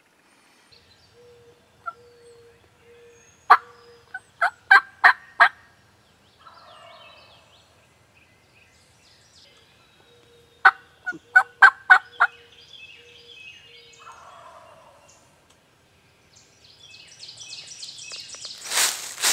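Two runs of sharp turkey yelps, about seven notes each, each answered about a second later by an eastern wild turkey gobbler's more distant rolling gobble. A louder rustling noise builds near the end.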